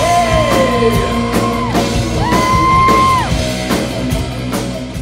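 Heavy metal band playing live: a male singer holding long high notes over electric guitar, bass guitar and drums, with regular drum and cymbal hits. The music gets quieter near the end.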